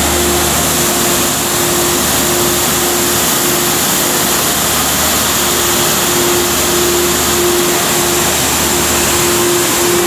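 Delfin Zefiro 75 three-phase industrial vacuum cleaner running steadily at full suction: a loud, even rush of air with a steady hum.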